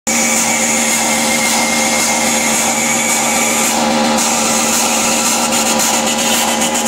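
Loud, dense wall of electronic noise played live from a laptop, even in level, with a low steady tone running underneath.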